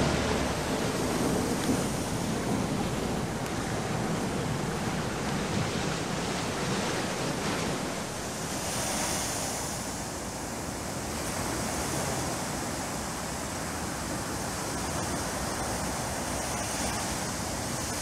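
Ocean surf breaking and washing up onto a sandy beach: a continuous rush of water that gently swells and eases.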